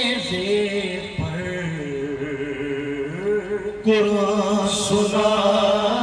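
Men singing a devotional chant into microphones over a sound system, in long drawn-out held notes that slide slowly from pitch to pitch. A new, louder phrase comes in about four seconds in.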